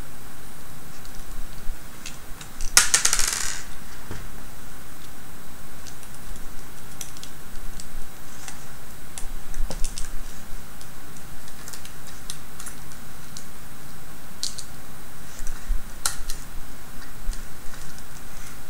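Small metal screws and nuts clicking against a plastic robot-kit gearbox as they are fitted and turned by hand: scattered light clicks, with a brief burst of metallic jingling about three seconds in. A steady hiss runs underneath.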